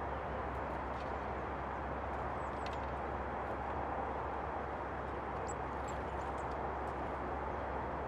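Steady rushing background noise, with a few faint, high, short chirps of small birds: a couple about a third of the way in and a cluster about three quarters through.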